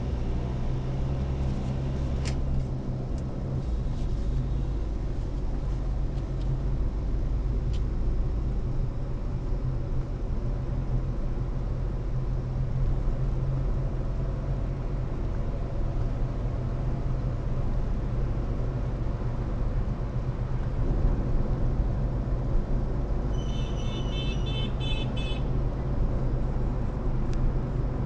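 Steady low rumble of a car on the road, engine and tyre noise. Near the end a horn sounds a quick run of short, high beeps lasting about two seconds.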